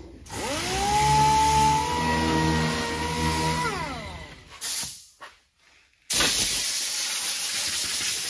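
Air-powered round-pad sander spinning up to a steady whine, running for about three seconds, then winding down, while sanding bare cowl sheet metal with 80-grit paper. After a brief silence a steady hiss starts abruptly.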